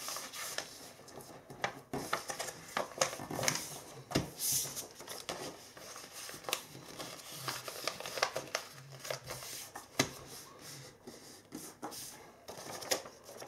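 Sheet of white paper being folded by hand into a paper airplane, the wings being bent back and the creases pressed down. Intermittent rustling and crinkling, with many short clicks and swishes.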